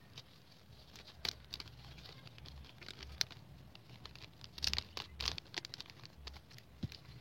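Handling of crinkly OPP plastic packing bags: irregular rustles and small sharp clicks, with a busier cluster about four to five seconds in.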